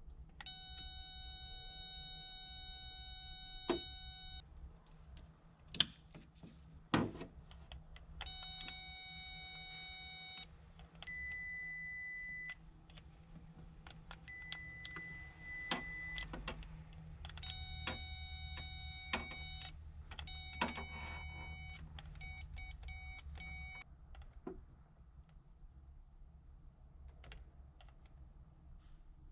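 Electronic beeping: a series of held beep tones, each lasting one to four seconds, with a quick run of short pulsed beeps near the end. Sharp clicks and taps fall between the beeps.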